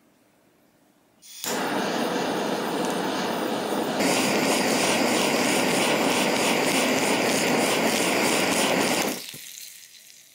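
A small electric kitchen appliance's motor switches on about a second in and runs with a steady whir. It steps up to a louder, higher setting a few seconds later, then is switched off near the end and winds down.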